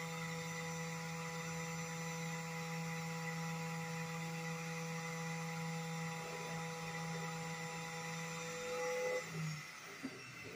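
Gasifier blower running with a steady electric hum while it pumps gas into the floating-drum accumulator. It shuts off about nine and a half seconds in, followed by a short click.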